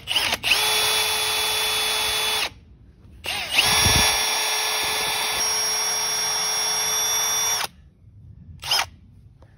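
Milwaukee M18 cordless drill boring into a chrome highway-peg mount on a motorcycle, its motor running at a steady pitch. It runs for about two seconds, stops briefly, runs again for about four seconds, then gives a short blip near the end.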